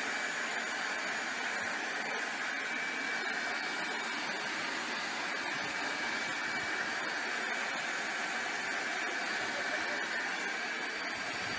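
Handheld air blower running steadily, a constant rush of air with a faint high motor whine.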